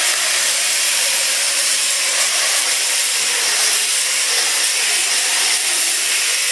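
Electric angle grinder running steadily with its disc ground against steel, a loud even high hiss.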